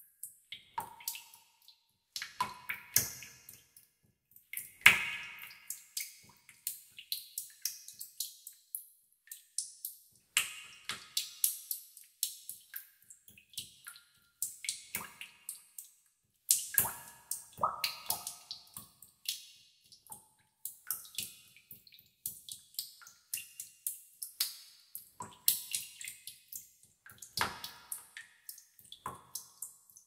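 Water drops falling into water in a tub, dripping irregularly several times a second, each a sharp plink and many with a brief ringing tone at varied pitches.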